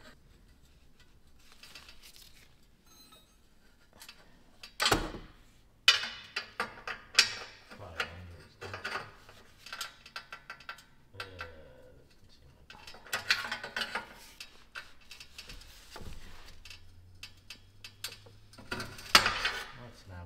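Hand ratchet wrench on an extension working an exhaust downpipe flange nut: bursts of ratchet clicking and sharp metal tool clanks, loudest about five seconds in and again near the end.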